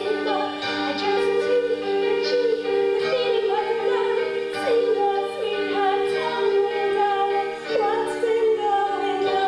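A woman singing a slow show tune live over instrumental accompaniment, ending on a long held note with vibrato.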